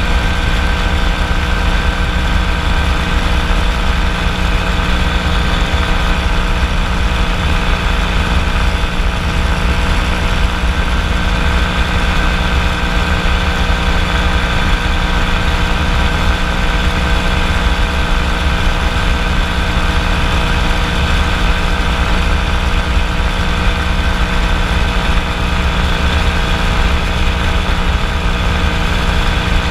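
Kolb FireFly ultralight's engine and propeller running at a steady, unchanging pitch in flight: a constant loud drone.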